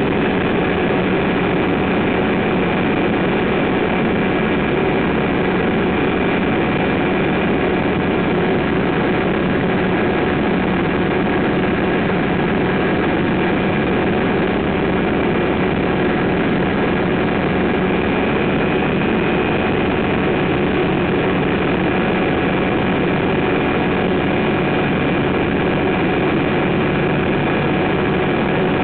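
Pou-du-Ciel ultralight aircraft's engine and propeller running steadily in cruising flight, heard from inside the cockpit: a loud, unchanging drone with a few steady tones in it.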